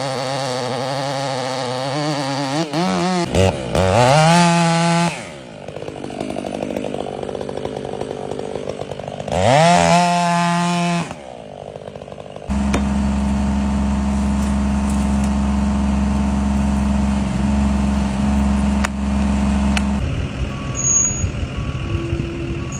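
Gas chainsaw running and cutting wood, revving up in rising bursts and dropping back several times. In the second half a steadier, deeper engine sound takes over.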